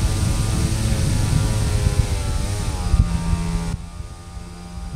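Twin brushless electric motors and propellers of an RC glider running in flight, heard up close with wind rushing over the microphone: a steady whine that dips in pitch briefly about two and a half seconds in. Near the end the sound drops suddenly to a quieter, steady low drone.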